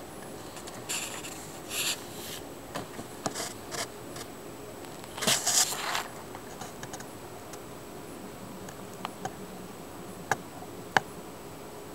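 Short bursts of scratching and rubbing, the longest and loudest about five seconds in, and scattered sharp clicks, two of them loud near the end, over a low steady hiss. No thunder rumble is heard.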